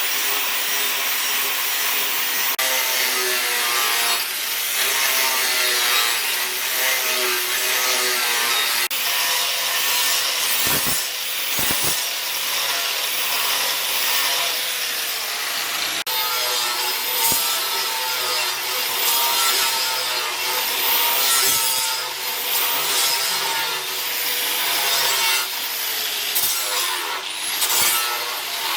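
Wood being worked with a cutting or abrasive tool, likely the sword's wooden handle being shaped: a continuous rasping noise with a wavering pitch, changing abruptly a few times.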